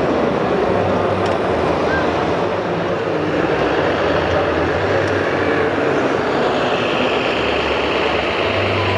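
Steady mixed din of crowd chatter and radio-controlled scale model trucks running, with a low hum coming and going. A high, steady hiss joins about two-thirds of the way in.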